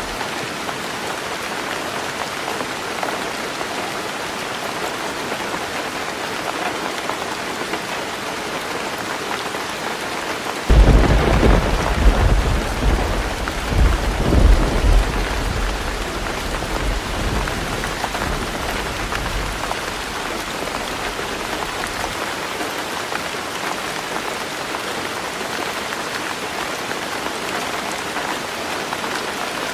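Heavy rain falling steadily on a roof. About a third of the way in, a sudden thunderclap breaks out, rumbles with several loud peaks for a few seconds, then dies away under the rain.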